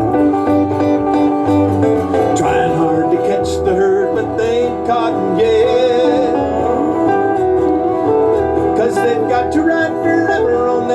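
Live country-western band music with guitars over a steady bass pulse, a break in the song between sung lines.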